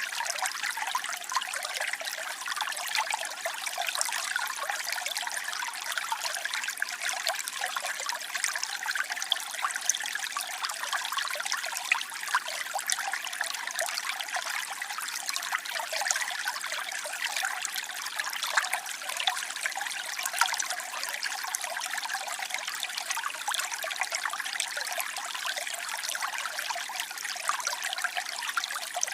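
Waterfall: water falling and splashing steadily, a bright, even hiss with many small splashes in it and almost no low rumble.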